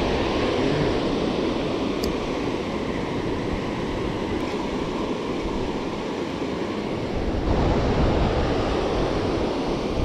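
Steady rush of river water spilling over a low-head dam, with wind buffeting the microphone.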